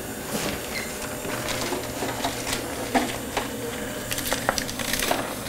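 Scattered light clicks and handling noises as a dental Velscope handpiece is picked up and handled, over a faint steady hum.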